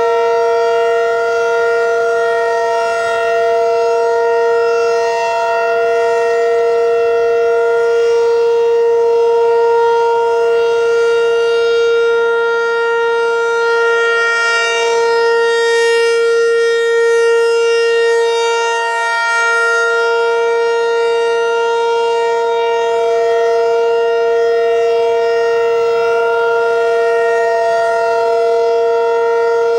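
Federal Signal 508 outdoor tornado warning siren sounding its steady alert tone: one loud, unbroken pitch that swells gently in loudness every few seconds.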